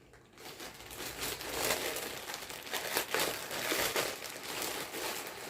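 Packaging crinkling and rustling in the hands as a small figure is unwrapped and handled, a dense crackle with a few louder crinkles.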